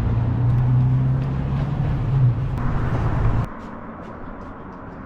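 A motor vehicle's engine running close by, a steady low hum that cuts off suddenly about three and a half seconds in, leaving faint street background.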